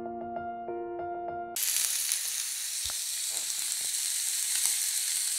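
A short musical insert of a few held notes, cut off about a second and a half in by a steak sizzling in a frying pan: a steady frying hiss with a few faint pops.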